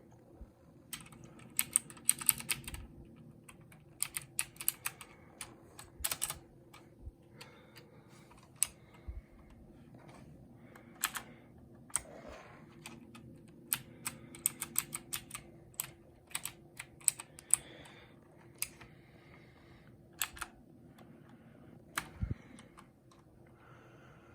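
Mechanical keyboard with clicky blue switches being typed on, in quick irregular runs of keystrokes broken by single presses and short pauses.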